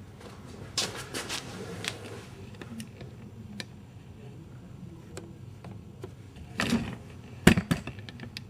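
Scattered clicks and knocks of hard objects being handled and set down, with a cluster about a second in and a single louder knock about seven and a half seconds in.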